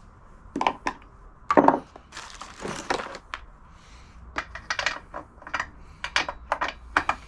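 Small plastic and metal clicks and knocks from hands working at the top of a chainsaw engine with the air filter cover off, as the spark plug boot is pushed back onto the plug; a short scraping rustle comes about two seconds in.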